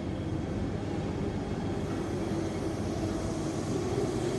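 MTR M-train electric multiple unit moving along the station platform: a steady rumble of wheels and running gear, with a hum that grows a little stronger in the second half.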